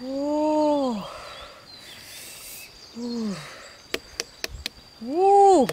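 A voice calling out 'ooh!' three times, each a short cry that rises and then falls in pitch. A few sharp clicks come about four seconds in.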